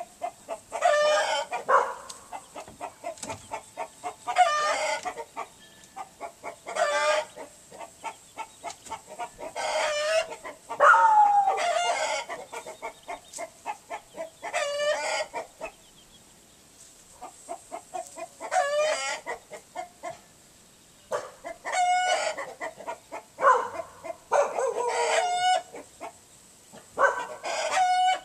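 Chickens clucking in a rapid run of short notes, with about ten louder pitched calls spaced a few seconds apart.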